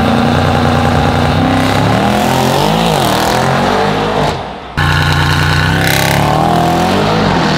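Mercedes-AMG E63 S wagon's twin-turbo 4.0-litre V8 pulling away hard, its exhaust note climbing and dropping with the revs. It breaks off abruptly about four and a half seconds in, then comes back just as loud and climbs again.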